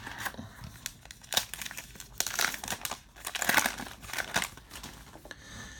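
A 2019 Topps Heritage baseball card pack wrapper being torn open and crinkled by hand: an irregular run of crackling, busiest through the middle.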